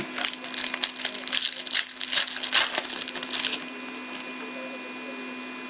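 Trading card pack wrapper crinkling and tearing as a pack is opened by hand, a rapid crackle that stops about three and a half seconds in.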